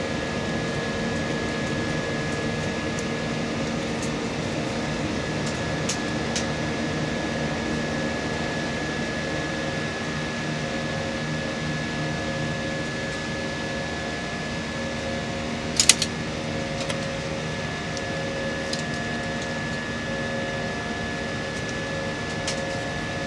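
Steady cabin noise of a jet airliner in its climb: engine and airflow drone with a faint steady whine. A brief click about sixteen seconds in.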